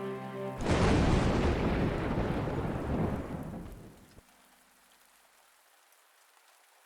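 A loud clap of thunder breaks in about half a second in, rumbles and fades over about three seconds, then cuts off abruptly. Faint steady rain is left underneath.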